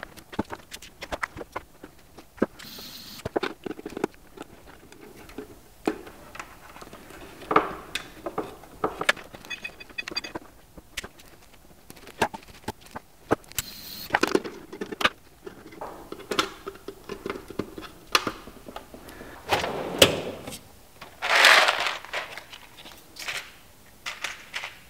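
Hands handling wiring at a blade-fuse block: a scattered run of small clicks, taps and scrapes of cables, terminals and plastic parts, with a louder rustling scrape near the end.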